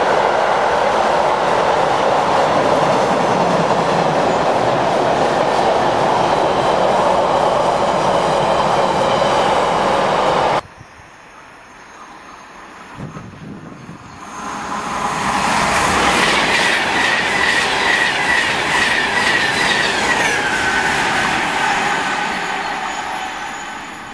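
Freight train of car-carrier wagons rolling past steadily, cut off abruptly about ten seconds in. Then a Class 390 Pendolino electric train grows loud as it approaches, with a high whine that drops in pitch near the end before the sound fades.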